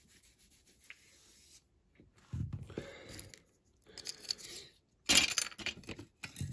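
Small plastic and die-cast toy car parts being handled and fiddled with by hand: irregular rustling, scraping and clicking, loudest in a short cluster about five seconds in.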